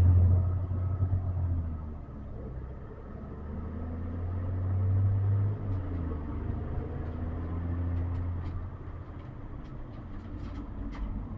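Car driving, heard from inside the cabin: a steady low rumble of engine and road noise that swells and eases, with a few faint ticks in the second half.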